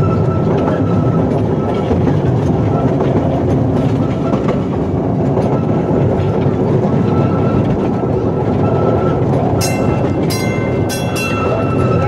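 Small park train's open passenger car rolling along the track: a steady rumble of wheels on rail with some clickety-clack, and a faint high tone coming and going. A few sharp clicks with short high squeals come near the end.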